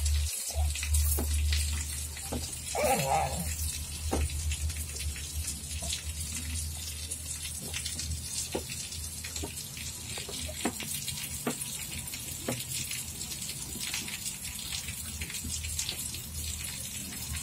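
A baby eating from a squeeze-bottle spoon feeder: small scattered mouth clicks and smacks over a steady hiss, with one short baby vocalization about three seconds in.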